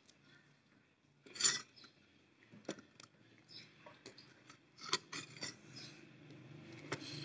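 Quiet scrapes and light clicks of a hand and a spoon against a small bowl as a filled bread ring is turned in beaten egg; the loudest is a short scrape about a second and a half in.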